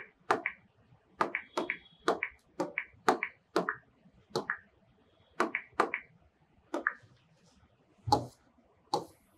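Fingertip taps on a large touchscreen display's on-screen keyboard as a search is typed: a quick irregular run of sharp taps, about two a second, with one louder thump about eight seconds in.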